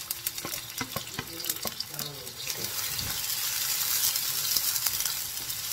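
Sliced onion, chili and garlic sizzling in hot oil in a wok, growing a little louder, while a wooden spatula scrapes and taps as they are stir-fried.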